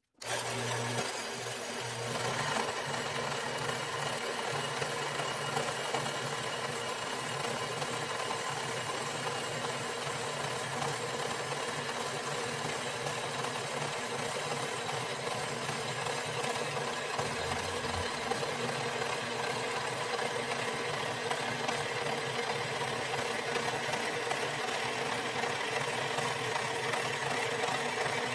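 Metal-cutting band saw running, its blade cutting through 11-gauge steel plate. The steady whir of motor and blade starts suddenly and grows a little louder about two seconds in as the blade bites into the plate.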